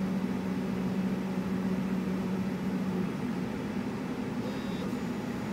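Laser cutter humming steadily with its fans running, ready to cut. A low drone in the hum drops out about three seconds in, and a short faint high tone comes near the end.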